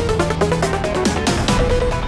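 Electronic background music with a steady beat and synth melody.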